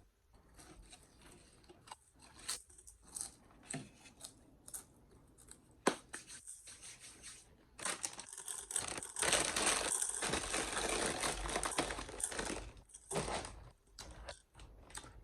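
Plastic being handled and crinkled: scattered light taps and rustles, then from about eight seconds in, some five seconds of continuous loud crinkling and tearing.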